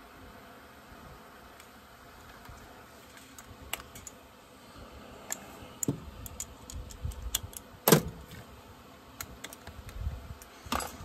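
Scattered light clicks and clinks of small parts and hand tools being handled during chainsaw reassembly, with a few dull knocks and one sharp, loud click about eight seconds in.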